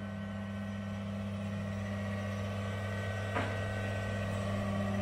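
Bathroom extractor fan running with a steady electrical hum that grows slightly louder, with one faint knock about three and a half seconds in.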